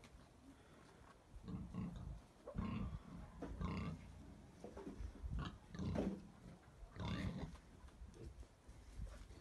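A dozen or so short, low calls from a farmyard animal, coming in quick pairs and clusters.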